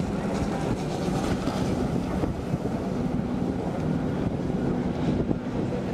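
Jet ski engines running at speed across choppy water, a steady drone, with wind buffeting the microphone.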